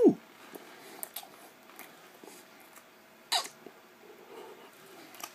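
A man's brief vocal sound that falls sharply in pitch at the start, then a quick sharp breath noise about three seconds later, with faint mouth clicks between.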